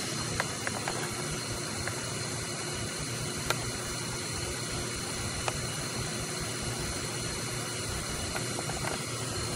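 Steady background hum and hiss with a few faint clicks.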